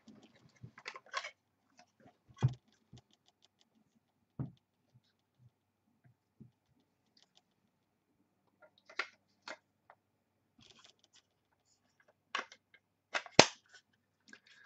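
Hands handling a trading card and a clear plastic one-touch card holder: scattered light clicks, taps and rustles, with a sharp plastic click from the case near the end.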